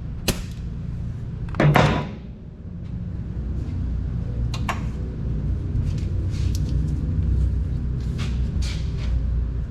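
Hand tools clinking metal on metal while a socket and extension are worked: a sharp click, then a louder clank about two seconds in, then a few lighter clicks later on, over a steady low rumble.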